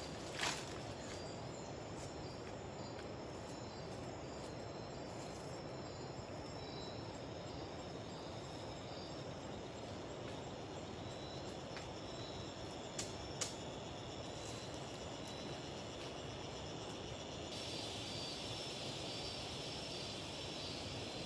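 Rainforest ambience: a steady background hiss with insects chirping in a high, repeating pulse, and a few sharp clicks about half a second in and again around thirteen seconds. The insect chorus grows louder from about seventeen seconds on.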